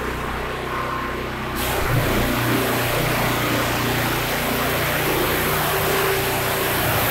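Landa portable hot-water pressure washer with its gasoline engine running steadily. About a second and a half in, the trigger is pulled and the high-pressure spray from the wand starts hissing, continuing over the engine's steady running.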